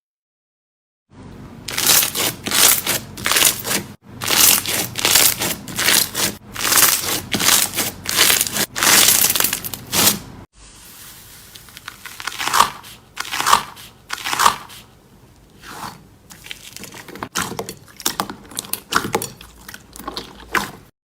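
Slime being squeezed and pressed by hand, with dense crackling and popping. About halfway through the sound changes abruptly to quieter crackles and a few short squelches.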